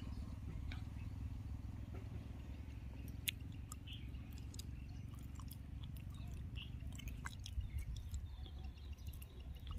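Steady low rumble of wind on the microphone, with a few faint scattered clicks.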